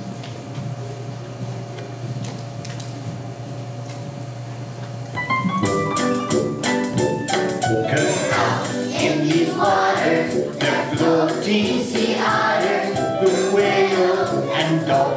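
A song starts about five seconds in: a choir of voices singing over music with percussion. Before it there is only a quieter steady hum with a few held tones.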